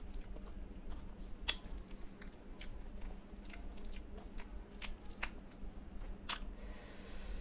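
Close-up chewing of rice and mashed okra eaten by hand: irregular wet mouth clicks and smacks, with a sharp click about a second and a half in and another near the end, over a low steady hum.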